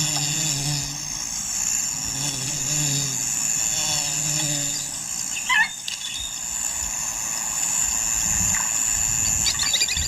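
Wild natural ambience: a steady high insect drone with low held tones in the first half, a single short bird call about five and a half seconds in, and rapid chirping near the end.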